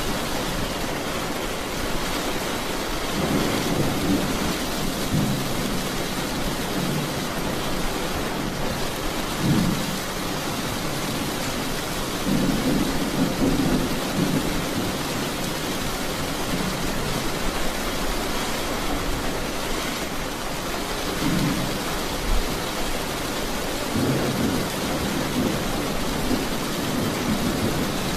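Steady rain falling, with low rumbles of thunder swelling and fading several times.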